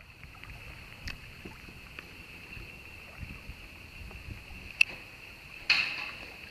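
Kayak drifting on calm water: steady background hiss with a few light knocks, a sharp click almost five seconds in and a louder knock just before the end.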